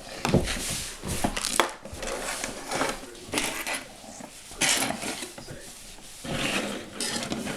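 Plastic Lego pieces being handled: a string of sharp clicks and short rattling, rustling bursts as bricks are picked up, moved and set down.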